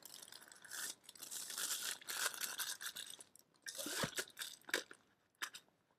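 Thin clear plastic bag crinkling as a stainless steel tumbler is slid back into it, lasting about three and a half seconds. A shorter rustle follows about four seconds in, then a few light taps of handling.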